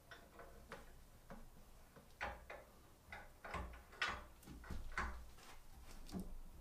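Scattered light clicks and knocks, a few with a dull thud, from the table of a Porter-Cable floor drill press being shifted and positioned by hand on its column.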